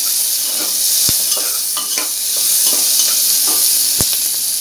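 Sliced onions and green chilies sizzling in hot ghee and oil in an aluminium pressure cooker while being stirred and sautéed with a spatula, a steady frying hiss. The spatula knocks against the pot twice, about a second in and near the end.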